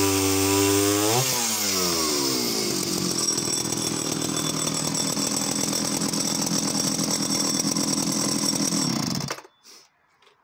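Danarm 71SS vintage two-stroke chainsaw cutting a log, its engine pitch wavering under load. About a second in the pitch jumps sharply and the saw runs steadily at high revs for several seconds before the sound stops abruptly near the end.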